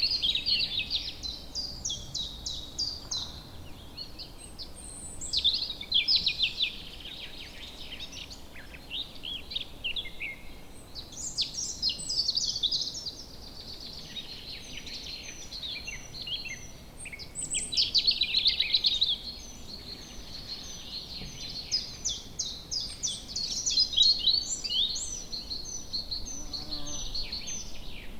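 Woodland birds singing and calling together: several overlapping songs of quick high chirps, trills and whistles, swelling louder every few seconds, over a faint low background hiss.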